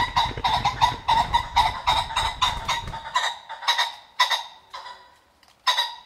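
Common pheasant cackling: a rapid, loud run of harsh clucks that slows after about three seconds into a few spaced calls, with one last loud call near the end. A low rumble sits under the first half and stops about three seconds in.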